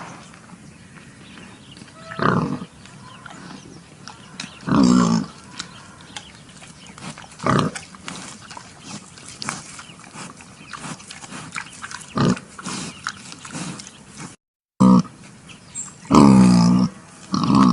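Pigs calling: loud, short pitched calls every few seconds, with a longer call near the end and faint rustling and clicking between calls. The sound cuts out briefly, about three-quarters of the way through.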